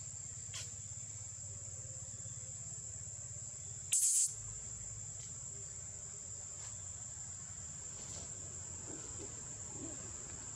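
Steady, high-pitched drone of insects in the forest canopy, with one short, louder burst of hiss about four seconds in.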